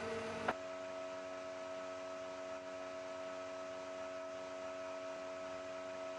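Steady electrical hum with several held tones from the idle CNC milling machine and its drives, the spindle switched off. A short click about half a second in.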